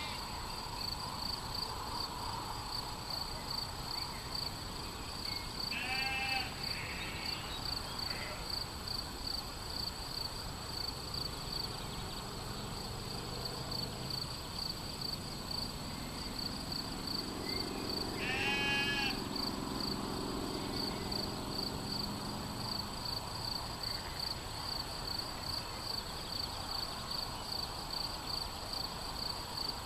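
Sheep bleating in the middle of the stretch, with short bird chirps at about 6 s and 18 s and a steady, high, pulsing trill throughout.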